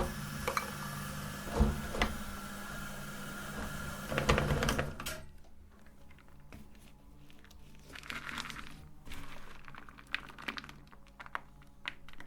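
Meat grinder's motor running with a steady hum and scattered cracks and clicks as soap is ground, stopping about five seconds in. After that, only faint clicks and handling noises.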